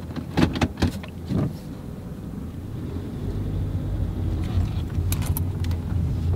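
Inside a Toyota Yaris: a few sharp clicks and knocks in the first second and a half, then a steady low engine and road hum that grows louder from about three seconds in, with a couple more light clicks near the end.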